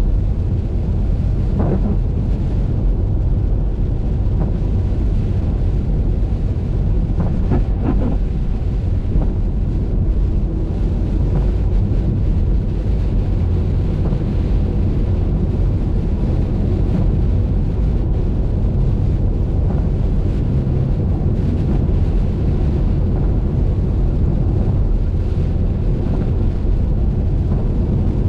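Steady low rumble of a car driving at highway speed: road and wind noise, with a few brief swishes about two and eight seconds in.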